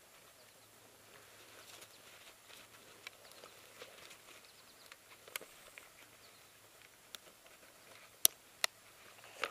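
Faint rustling and scattered light ticks, typical of someone moving over a forest floor. Two sharp clicks come close together about a second before the end.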